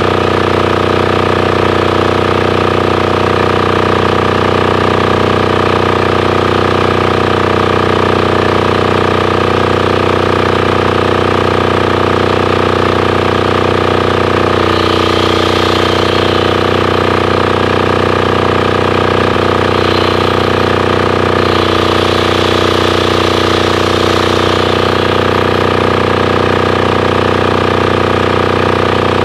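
Titan 7500 diesel generator running steadily at constant speed with an even, fast pulse. A higher hiss comes in twice in the second half.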